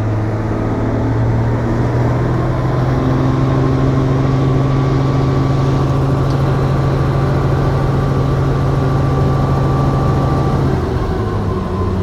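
Helicopter running with a steady, loud engine and rotor hum; the pitch of the hum shifts about eleven seconds in.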